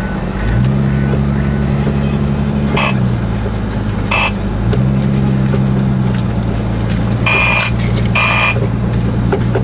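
Off-road four-wheel-drive's engine heard from inside the cab while driving a rutted snow trail: a steady drone whose pitch steps up and down a few times as the throttle changes, with knocks and rattles from the bumpy ground. Several short higher-pitched bursts cut through, the longest two near the end.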